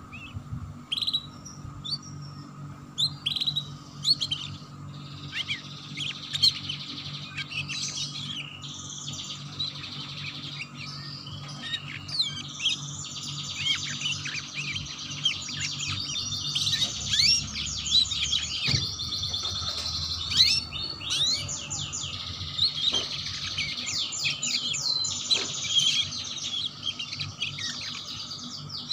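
Domestic canary singing a long, fast, rolling 'ngeriwik' song: rapid high notes run together in dense trills, sparser at first and nearly unbroken through the second half, over a faint steady hum.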